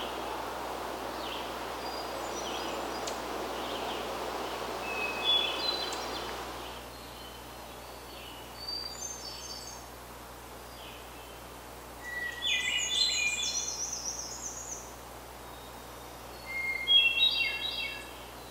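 Songbirds singing short phrases of quick high notes several times, the loudest near the end. For the first several seconds a steady rushing background noise runs under the song, then stops.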